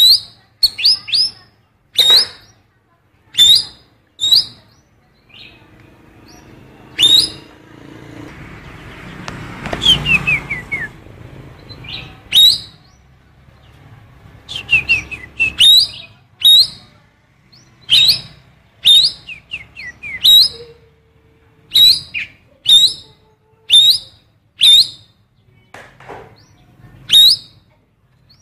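A cucak keling songbird singing mimicked female oriental magpie-robin calls: sharp, loud call notes repeated about once a second, with short runs of quickly falling notes about ten and fifteen seconds in.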